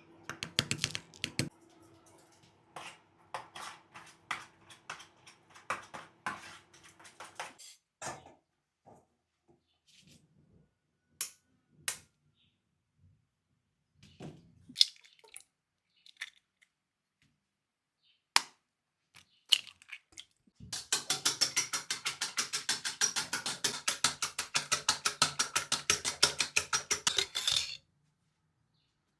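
Kitchen utensils clicking and knocking against dishes and a board. Later comes a run of about seven seconds of rapid, even strokes, roughly ten a second, that stops abruptly.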